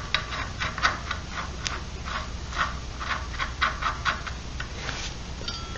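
Small metallic clicks and ticks, irregular at about two to four a second, from the washer and bolt being fastened on the crankshaft to secure a TAV30-clone torque converter's driver pulley.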